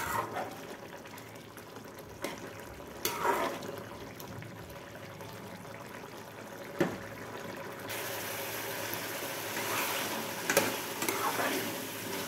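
Chicken curry gravy bubbling and cooking down in a steel kadhai over a high gas flame, with a spoon now and then knocking against the pan. About eight seconds in, a louder steady sizzling hiss sets in as the curry is stirred and fried down.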